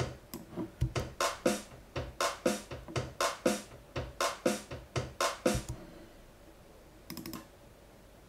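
A short looped MIDI pattern played back through a software instrument in Pro Tools: an even run of short electronic notes, about three a second, that stops about two-thirds of the way through. A brief sound follows about a second later.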